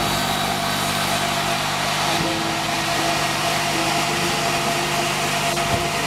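Sawmill band saw running steadily as an acacia plank is fed through it, a constant mechanical drone with a few fixed tones under a hiss of cutting.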